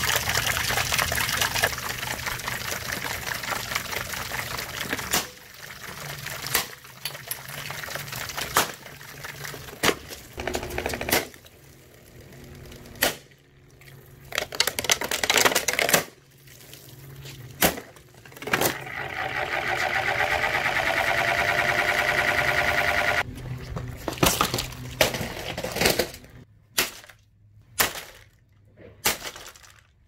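Pressure-washer jet hissing against a plastic box fan, in short clips broken by sharp clicks. Past the middle, a motor whine rises and holds for a few seconds, then cuts off suddenly. Near the end comes a quick run of sharp cracks and knocks with short silences between, as the fan's plastic housing is broken.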